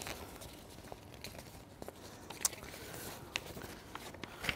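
Quiet room tone in a hall, with a scattering of faint clicks and soft rustles, one sharper tick about halfway through and another at the end.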